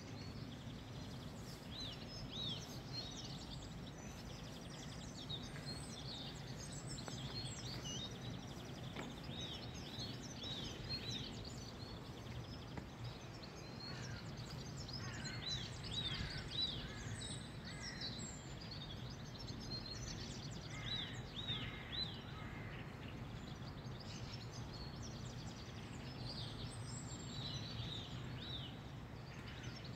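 Songbirds chirping and singing, with short high notes throughout and livelier runs of song around the middle, over a steady low background rumble.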